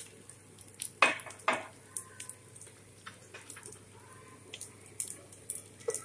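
Light clatter of utensils at a cooking pot: two sharper knocks about a second in, then scattered light taps and clicks as a wooden spoon stirs coconut milk into the curry.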